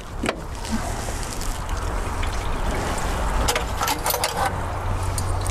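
Antifreeze trickling steadily out of the radiator drain, propped open with a screwdriver, into a catch bucket, over a steady low rumble. A few light clicks come about three and a half to four and a half seconds in.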